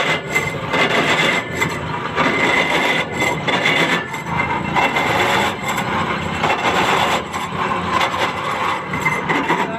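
Harsh, continuous grinding and rubbing noise from an Ashok Leyland 2518 truck's crown wheel and pinion (rear differential), the crown noise the truck is being checked for.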